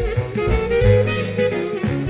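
Instrumental jazz played back through Marten hi-fi loudspeakers: a saxophone melody over a double bass line.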